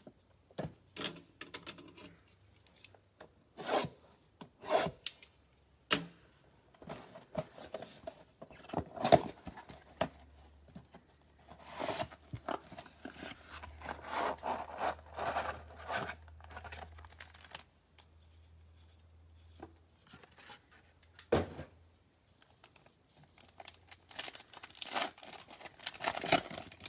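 Cardboard trading-card box being torn open and its contents handled by gloved hands: a run of tearing, scraping and rubbing sounds broken by sharp knocks. Near the end comes a denser stretch of crinkling as a foil card pack is opened.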